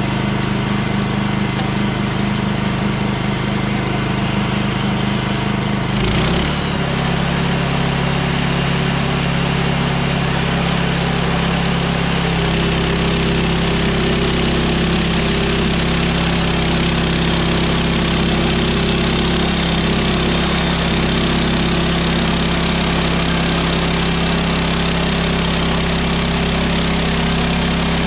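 Woodland Mills HM126 portable bandsaw mill's gas engine running: it picks up speed about six seconds in, then runs steadily as the band blade saws through a pine log.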